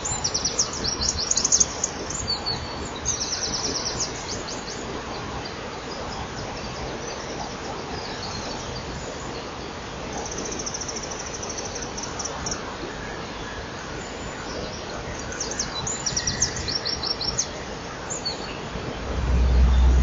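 Dawn chorus of songbirds, led by the Eurasian wren's loud, fast trilling song and the European robin's song, in several bursts over a steady hiss. About a second before the end, a low rumble sets in.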